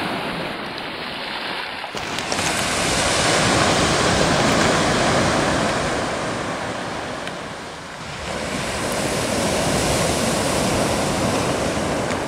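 Sea surf washing onto a pebble beach: a steady rush of waves that swells, eases a little after the middle, then swells again.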